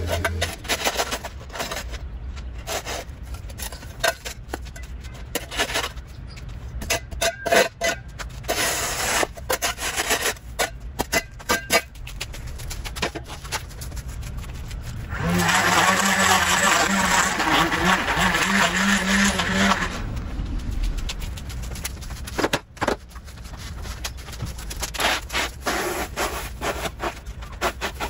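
Leaf rake scraping grass clippings across a concrete sidewalk in short, irregular strokes. About halfway through, a louder steady noise with a low hum lasts some five seconds.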